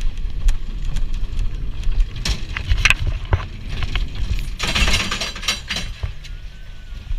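Bobsled roller coaster car rumbling along its track and onto a chain lift, with irregular clanks and clacks from the wheels and lift mechanism. There is a brief hiss about five seconds in.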